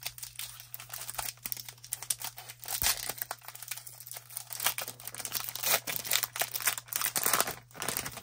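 Wrapper of an Upper Deck MVP hockey card pack being torn open and crinkled: a dense, irregular run of crackles and rustles, with a steady low hum beneath.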